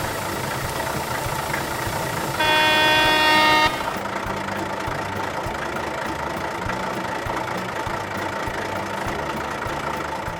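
A vehicle engine runs steadily, with one horn honk lasting just over a second about two and a half seconds in.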